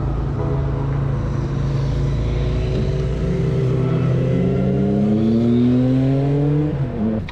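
Motor vehicle engine accelerating: a steady low engine hum, then a whine that rises steadily in pitch for several seconds and breaks off near the end.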